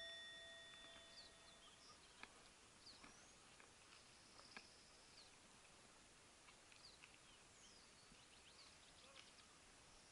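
The last of a struck bell's ringing fades away over the first couple of seconds. Then there is near silence, with faint birds chirping in short, sliding notes.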